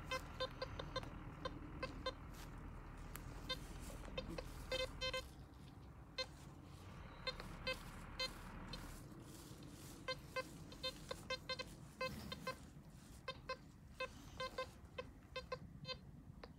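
Handheld metal detector giving many short, high beeps at an irregular rate.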